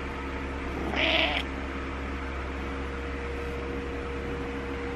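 Domestic cat giving one short meow about a second in.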